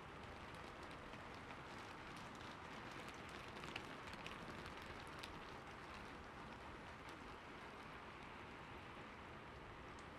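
Faint steady hiss with scattered soft ticks and clicks, a few slightly louder about four seconds in.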